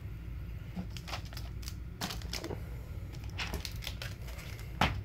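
Hard plastic CGC comic-book slabs being handled and swapped: scattered light clicks and rustling, with one sharper knock near the end.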